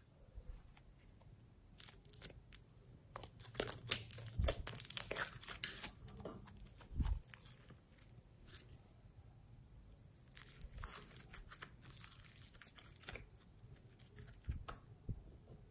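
Yellow glitter slime being stretched and pulled apart by hand, with sticky crackling and popping. The crackles come in two thick spells, from about three to six seconds in and again from about ten to thirteen seconds in.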